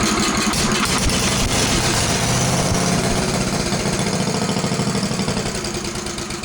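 Cast-iron 9 horsepower Briggs and Stratton engine starting on its starter-generator with the choke on, on the first try of its freshly rebuilt Flo-Jet carburetor. It runs steadily for about four seconds, then fades as it dies: a start and a stop.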